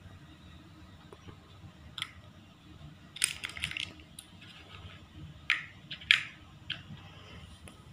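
Chunky plastic building blocks clacking together as they are handled and stacked: a single click, a quick rattle of clacks about three seconds in, then a few more sharp clacks as a block is pressed onto a tower.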